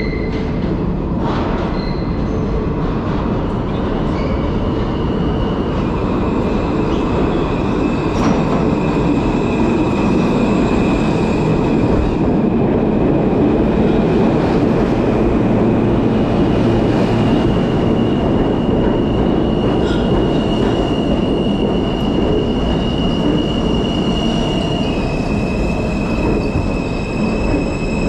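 New York City subway train running between stations, heard from inside the car: a loud, steady rumble of wheels on rail with a high-pitched wheel squeal that comes and goes.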